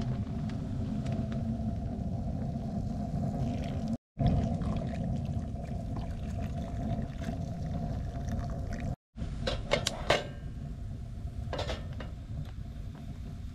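Hot water being poured from a metal mug into an aluminium mess tin, over a steady low rumble with a faint hum. Near the end come a few sharp metal clicks and clinks as a mess tin is moved over a wood fire.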